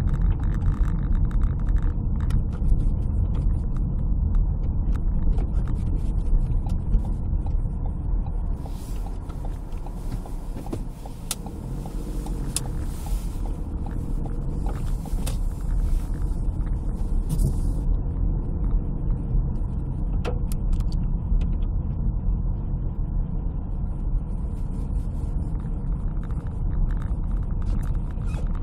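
A car driving slowly on snowy town streets, heard from inside the cabin: a steady low rumble of engine and tyre noise. Scattered clicks and ticks come over it for several seconds in the middle.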